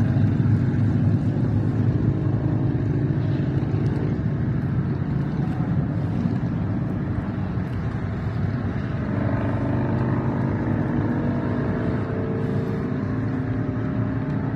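Steady low rumble of wind buffeting the microphone on an open boat on choppy water.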